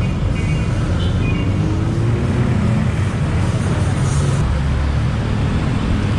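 Yamaha Sniper 150 underbone motorcycle's single-cylinder four-stroke engine running at road speed on a new bike being broken in, under steady wind rumble on the helmet microphone and road noise. A faint higher tone sounds briefly in the first second or so.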